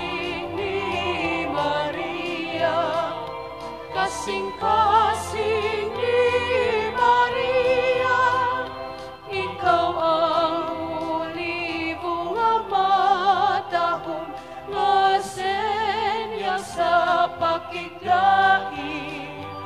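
Music of a Marian devotional hymn (gozo): voices singing with vibrato over a steady accompaniment.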